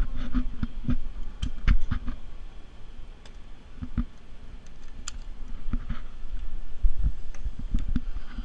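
Irregular clicking and knocking with low thumps from a ride's over-the-shoulder restraints being pulled down and locked into place.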